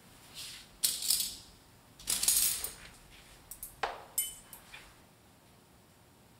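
Metal tableware clattering and clinking: a few bright clatters in the first three seconds, the loudest a little past two seconds in, then several lighter clinks, one with a brief metallic ring.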